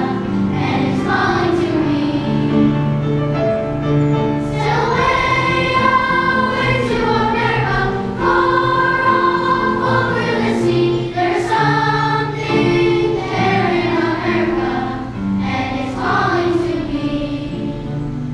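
Children's school choir singing a song together, with long held notes.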